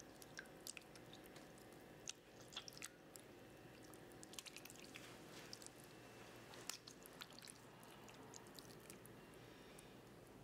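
Faint wet squelching of canned whole tomatoes being crushed by hand, in irregular small squishes and clicks over a low steady hum.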